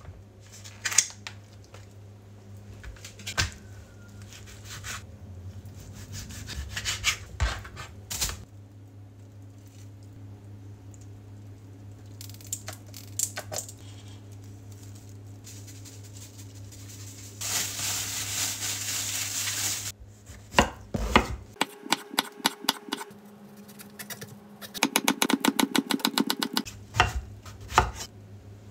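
Kitchen knife chopping eggplant on a wooden cutting board in quick runs of strokes in the last part, over a low steady hum. Before that come scattered clicks and knocks of handling food packaging, and a few seconds of steady rustling about two-thirds of the way through.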